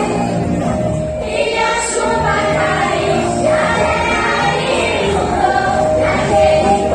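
Music with voices singing, choir-like, at a steady loud level.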